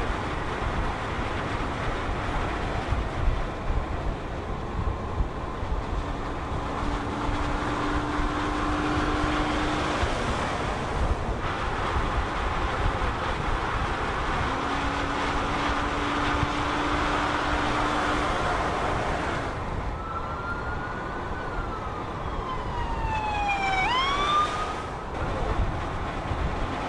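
Ford Police Interceptor patrol cars driving at speed, a steady rush of road and engine noise with a low steady drone twice. About twenty seconds in, an electronic police siren sounds briefly: a falling wail, then a few quick rising whoops.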